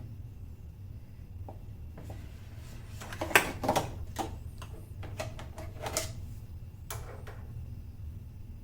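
A run of sharp clicks and clatters, like tools or parts being handled during installation work, over a steady low hum; the loudest knock comes about three seconds in.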